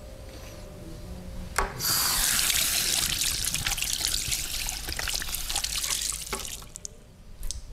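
Water running and splashing for about five seconds, starting just after a sharp click, then stopping; a few light clicks follow near the end.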